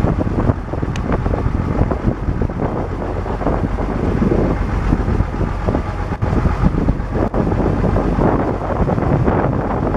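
Case 1070 tractor's six-cylinder diesel engine running steadily as the tractor drives along, heard from the driver's seat, with wind buffeting the microphone.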